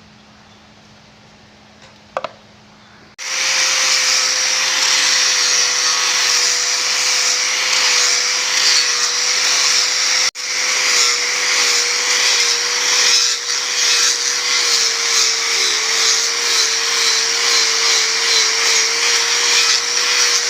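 Electric power tool running on wood: it starts about three seconds in and keeps a steady, hissing whine whose pitch wavers slightly as the tool is loaded.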